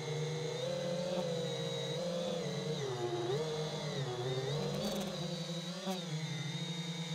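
FPV quadcopter's electric motors and propellers whining, heard from the onboard camera, the pitch dipping and rising as the throttle changes. There are two brief clicks near the end.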